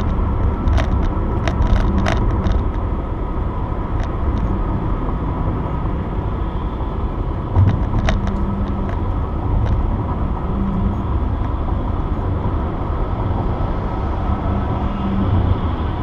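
Road noise inside a car cruising at highway speed: a steady low rumble of tyres and engine, with a few sharp clicks in the first couple of seconds and again about eight seconds in.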